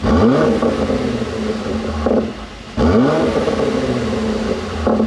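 Mercedes-AMG GLC 43's twin-turbo V6 revved twice through its exhaust: each time the revs shoot up and then fall back, and each rev ends in a sharp pop as the throttle closes, the overrun pop of a pop-and-bang tune.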